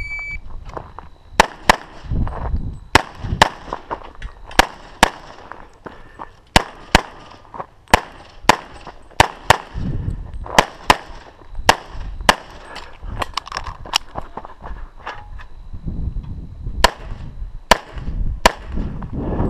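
A shot timer's start beep, then about twenty shots from a .40 S&W EAA/Tanfoglio Witness Elite Match pistol, fired mostly in quick pairs, with a pause of about two seconds before the last three shots.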